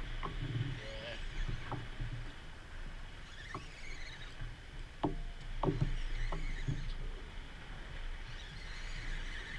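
Water sloshing against a fishing kayak's hull, with several short, sharp clicks and knocks from the rod, reel and gear while a fish is played on a bent rod, over a steady low rumble.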